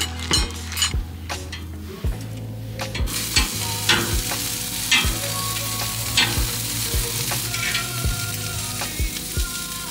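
Meat skewers sizzling on a grill over hot charcoal, with metal tongs clicking against the skewers and grate as they are turned. The sizzling comes in about three seconds in, after a few clicks and rustles.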